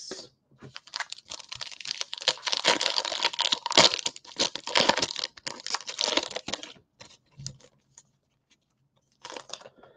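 Foil wrapper of a Panini Prizm basketball card pack crinkling and tearing as it is ripped open: a dense crackle lasting about six seconds, followed by a few faint clicks as the cards are slid out.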